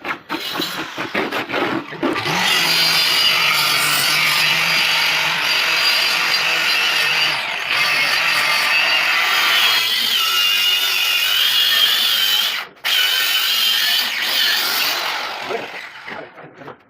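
Hand-held electric power tool running steadily on wood for about thirteen seconds, its whine wavering under load. It cuts out briefly near the end, then runs again before stopping. A few knocks come just before it starts.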